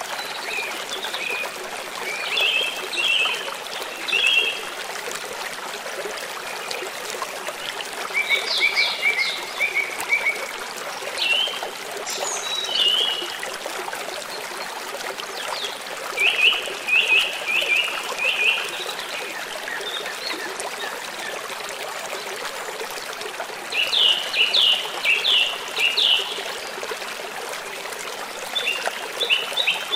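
Stream water running steadily, with birds singing over it in short phrases of quick repeated chirps, a new phrase every few seconds.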